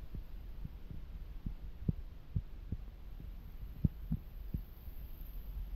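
Soft low thuds about twice a second, the walking steps of the person carrying the camera, over a steady low rumble.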